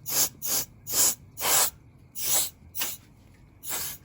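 Can of compressed air duster spraying in about eight short hissing bursts, blowing dust out of an opened game console.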